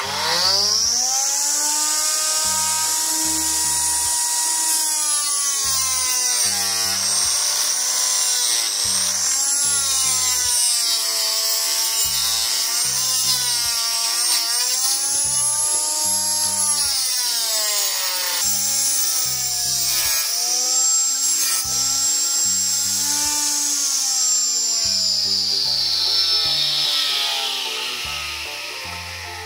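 Homemade mini table saw, a small electric motor driving an 8.5 cm toothed blade, spinning up to a high whine and then cutting through a 7 mm pine strip in one pass. The whine's pitch dips and recovers as the blade takes the load, and the motor winds down near the end.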